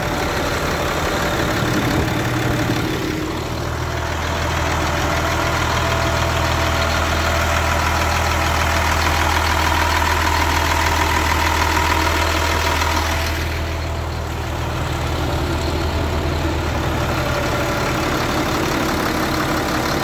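Caterpillar 3126 inline-six diesel engines in two school buses idling steadily, with a deep low drone and diesel clatter. The tone shifts twice, about three and thirteen seconds in, as it moves from one engine to the other.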